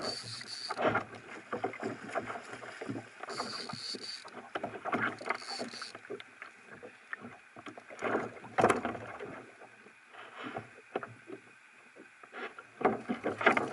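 Fishing reel drag giving three short high-pitched buzzes as a hooked corvina takes line, mixed with clicks from the reel and rod handling and water slapping against the kayak. Near the end the fish splashes at the surface beside the kayak.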